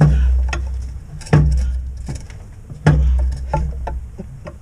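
Three heavy thuds about a second and a half apart, each with a deep ringing body, and lighter knocks and clicks between them: a truck transmission being shoved and jolted as it is worked loose to drop out.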